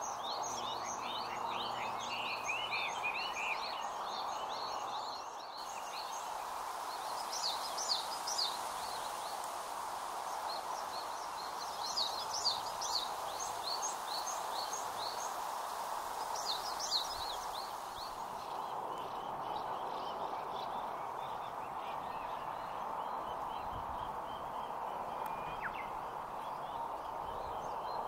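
Small birds singing in short bursts of quick, high chirping notes, a phrase every few seconds, over a steady background hum.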